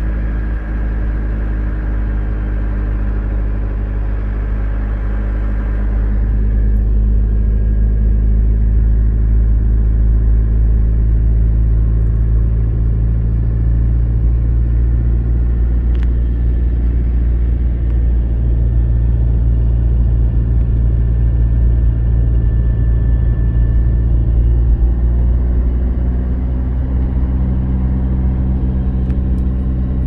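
Car engine and tyre noise heard from inside the cabin while driving at a steady speed: a low, even drone whose pitch shifts slightly near the end.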